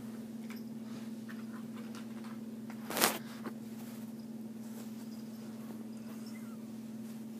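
Faint scuffling and small ticks from a cat in a quick-fit muzzle stumbling about on carpet, with one sharp knock about three seconds in, over a steady low hum.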